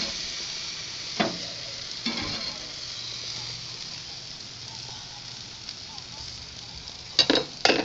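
Hamburger patties sizzling on a charcoal grill, loudest in the first second. A spatula knocks against the grate a few times, with two sharper knocks near the end.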